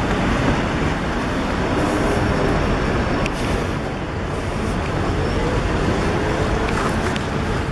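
Busy city street traffic: a steady noise of cars driving past on the road.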